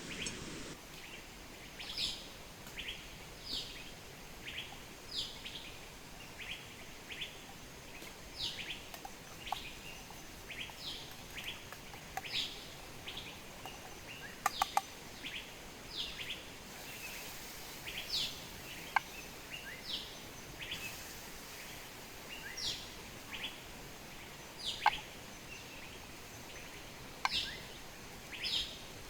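Small birds chirping: many short, sharp calls that sweep downward in pitch, coming every second or so throughout, over a faint steady hiss, with a few sharp clicks about halfway through.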